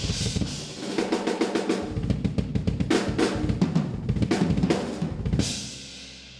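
Drum kit being played: rapid snare and bass drum strokes, ending on a crash cymbal hit about five seconds in that rings out and fades.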